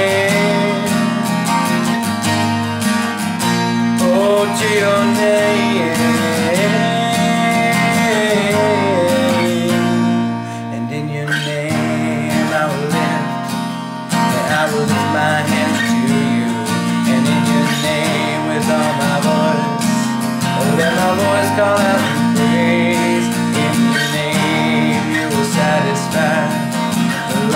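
Cutaway acoustic guitar strummed in a steady rhythm through an instrumental break, with a wavering melody line held and bent over the chords.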